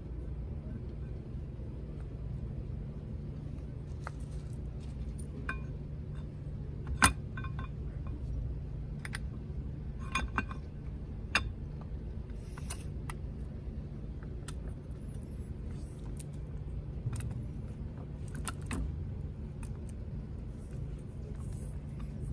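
Metal tools and small parts clinking and tapping now and then during hand reassembly work, with a sharp knock about seven seconds in, over a steady low hum.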